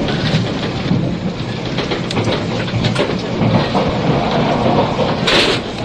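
Inside a 485-series electric express train car running at speed: a steady rumble with a few rail-joint clicks, heard through the hiss of an aged cassette recording. A short high hiss comes in about five seconds in.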